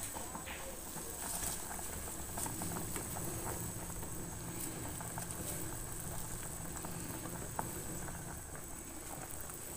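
Pot of fish soup boiling steadily on the stove, with small bubbles popping and ticking.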